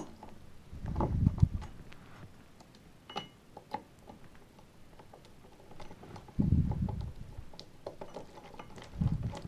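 Scattered small clicks and taps of a tool working the magazine-area screws on a Snow Wolf M24 airsoft rifle, with three dull handling thumps: about a second in, near the middle and near the end.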